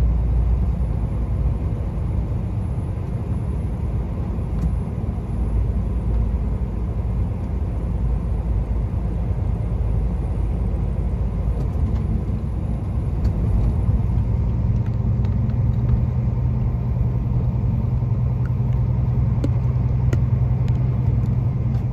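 Heavy truck's diesel engine and tyre noise heard inside the cab while driving, a steady low rumble. About two-thirds of the way through, the engine hum shifts up in pitch and holds there.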